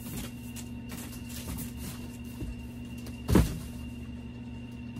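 Cardboard shipping box being shoved aside, with light scraping and one loud thump about three seconds in, over a steady low hum.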